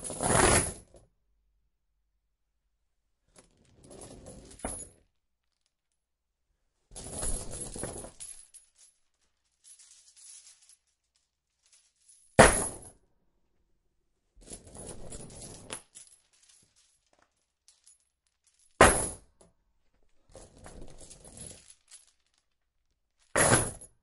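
A metal chain dropped again and again, each drop landing with a clinking rattle. There are about nine separate drops a couple of seconds apart, with dead silence between them. Some land as one sharp crash; others rattle on for a second or so.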